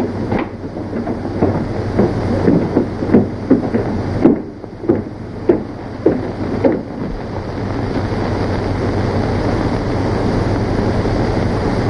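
Footsteps of several people climbing wooden stairs, irregular steps about two a second, for roughly the first seven seconds. After that only the steady hiss and low hum of an old film soundtrack remain.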